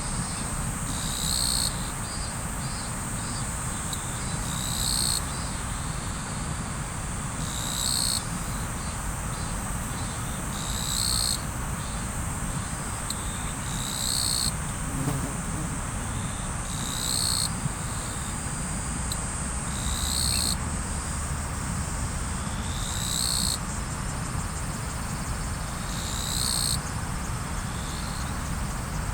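Riverside ambience: river water flowing steadily under a constant high trill of insects, with a short high chirping call repeating about every three seconds.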